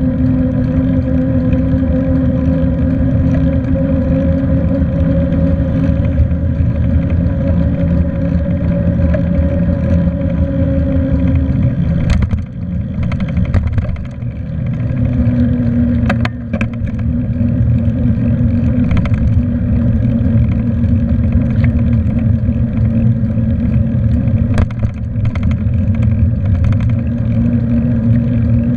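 Riding noise from a moving bicycle: a loud, steady humming drone. The hum drops away for a few seconds about twelve seconds in, then returns slightly lower, while a few sharp knocks and rattles come through.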